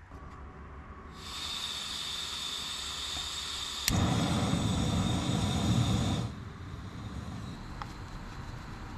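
Coleman canister camp stove: gas hissing steadily from the opened valve, then a sharp click about four seconds in and the burner catching with a low rumble of flame. The rumble and the loud hiss drop off suddenly about two seconds later, leaving a quieter steady hiss.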